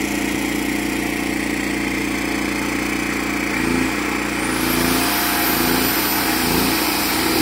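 Portable generator engine running steadily. About halfway in, a high-pitched electric tool whine spins up and holds.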